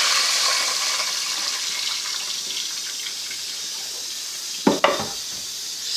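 Water hitting hot ghee with fried garlic and cumin in a steel pot, hissing and sizzling at first and dying down steadily. A short knock sounds about five seconds in.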